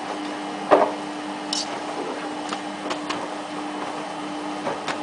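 Samsung WF8804RPA front-loading washing machine running the start of a wash on its denim programme: a steady hum under the drum tumbling, with irregular knocks and clicks as the load drops, the loudest about a second in.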